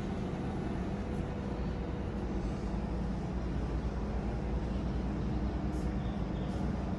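Steady low rumble with a faint hum and no distinct events, typical of machinery running in the background of a building site.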